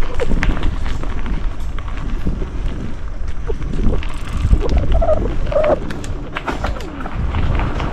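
Mountain bike riding down a dirt trail: a steady low rumble from the tyres and air on the microphone, with frequent clatters and knocks from the bike over rough ground.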